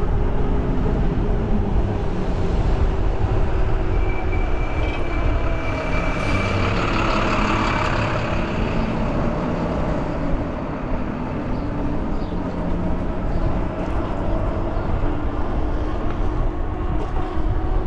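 Wind buffeting the microphone and tyre noise from an e-bike ridden along a road, a steady rumble. A louder swell of noise comes about a third of the way in, with a thin steady whine.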